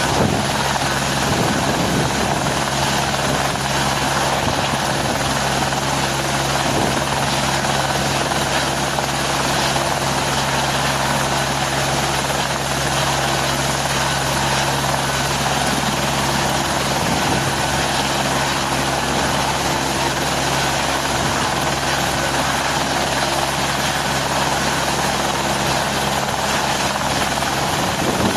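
Helicopter running steadily overhead, its rotor and turbine giving a constant noise with a low steady hum and no change in pitch or loudness.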